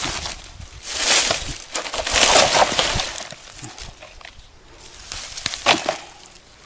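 Dry grass, leaves and twigs rustling and crackling in a few bursts as hands search through the ground litter.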